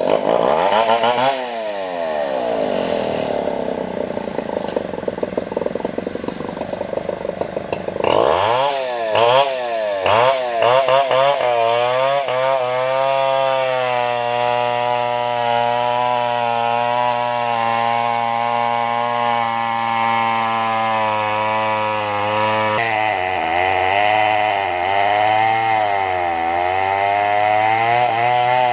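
Two-stroke chainsaw cutting timber, its engine revving up and down as the chain loads in the wood. It is quieter for the first several seconds, then runs loud and steady from about eight seconds in, with the pitch dipping and rising again near the end.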